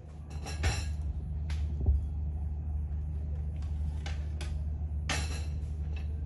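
Dishes and a serving tray clinking and knocking on a table as food is served: a few short clinks, the loudest near the start and about five seconds in. A steady low hum runs under them.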